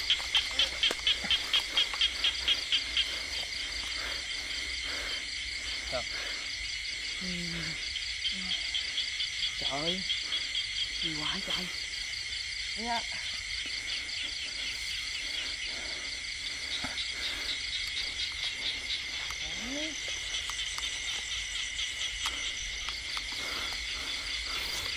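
Night chorus of insects and frogs: a steady high trilling, with runs of rapid even pulses, about five a second, loudest in the first three seconds and again around the middle.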